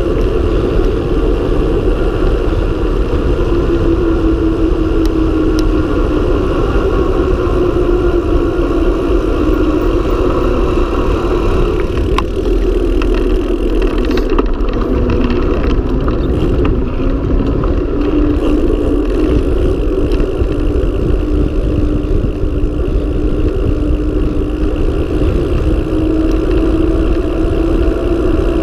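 Wind rushing over the action camera's microphone and the hum of a mountain bike's tyres on asphalt during a fast road descent. There is a steady tone that slowly rises and falls as the speed changes.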